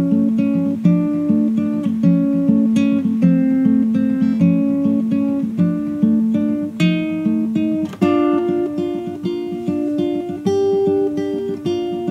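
Background music: acoustic guitar plucking a repeating pattern of notes, moving to higher notes about eight seconds in.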